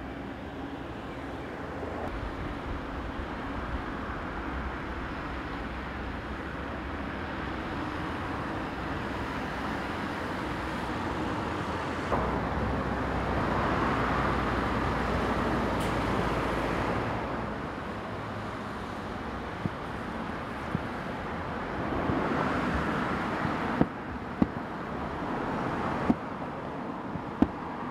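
Traffic on a city street: steady road noise with cars passing, swelling around the middle. In the last third come several sharp, separate distant bangs of fireworks bursting.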